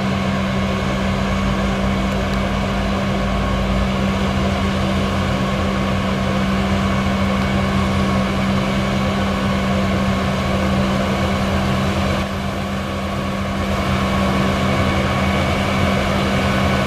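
Tractor and potato-harvesting machinery running steadily with a constant engine hum. It drops a little in level for a moment about twelve seconds in.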